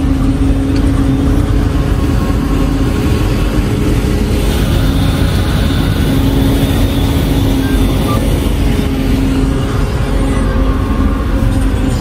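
CLAAS Jaguar 980 forage harvester heard from inside its cab while chopping corn. Its V12 diesel and the cutting machinery run in a loud, steady drone.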